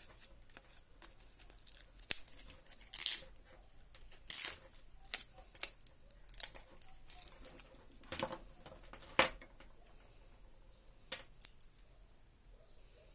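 Hands working at the parts of a disassembled car alarm siren's speaker: a scattered series of short scrapes and light clicks, the loudest about 3, 4.5 and 9 seconds in.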